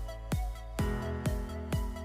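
Background music with a steady beat, about two strikes a second over held chords.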